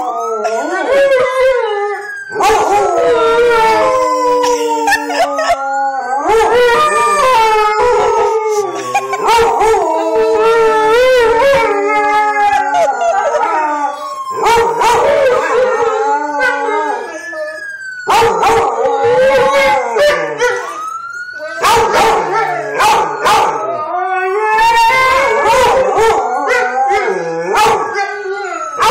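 Dogs howling along with an emergency-vehicle siren, in long, wavering, overlapping howls with brief pauses for breath.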